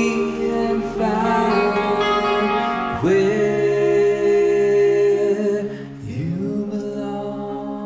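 Music: a slow song with long held sung notes over guitar, the voice sliding up into a new note about three seconds in and again about six seconds in.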